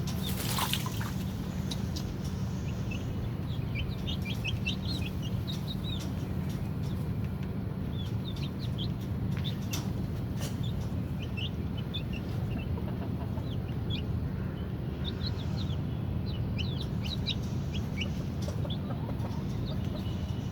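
Aviary birds calling: many short, high chirps scattered throughout, over a steady low hum.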